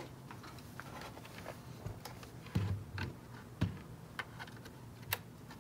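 Handling noise from the plastic case of a Tektronix 222A oscilloscope being turned on a bench and a DC barrel power plug being fitted: a few scattered light knocks and clicks, the two strongest about a second apart in the middle.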